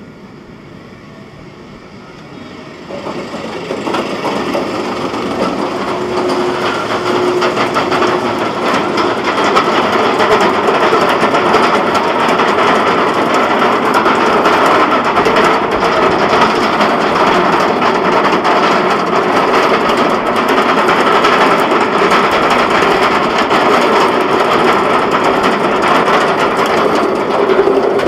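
GateKeeper, a Bolliger & Mabillard wing coaster: the train clattering along its steel track, a loud, dense, steady rattle of many rapid clicks that starts about three seconds in.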